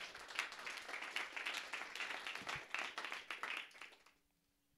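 Audience applauding at the end of a lecture, a dense patter of many hands clapping that dies away about four seconds in.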